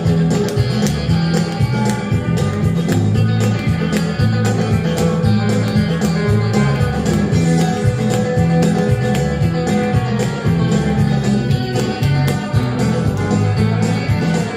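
Instrumental guitar music with a steady beat: a guitar break in a country-style song, with no singing.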